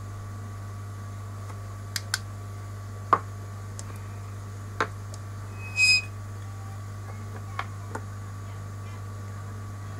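Small tools handled on a phone-repair bench: a handful of sharp clicks and taps, the loudest about three seconds in, and a short hiss with a thin beep-like tone just before six seconds, over a steady electrical hum.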